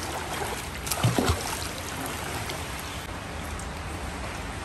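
Swimming-pool water splashing and lapping as a child swims, with a couple of short low thumps about a second in.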